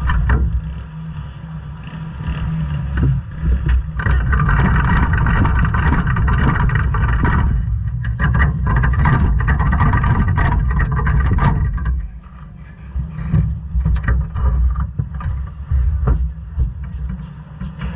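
Quarter midget race cars' single-cylinder Briggs & Stratton Animal engines running as the cars are push-started in staging, a steady low engine rumble. A nearby engine buzzes louder about four seconds in, breaks off briefly near eight seconds, and dies back around twelve seconds.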